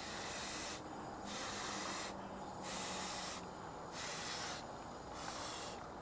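A person inflating a camping pillow by mouth: five breathy puffs blown into its valve, each under a second long, coming about every second and a quarter.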